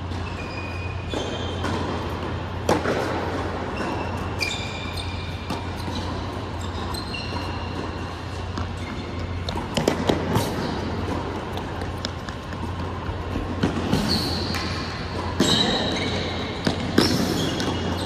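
Tennis balls bouncing and sneakers squeaking on an indoor hard court, with a few sharp ball strikes, most of them in the second half. A steady low hum runs underneath.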